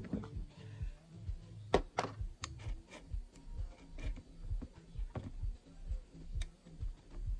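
Scattered light metallic clicks and taps as a chainsaw chain is handled and fitted onto the guide bar, the loudest about two seconds in, over quiet background music with a steady beat.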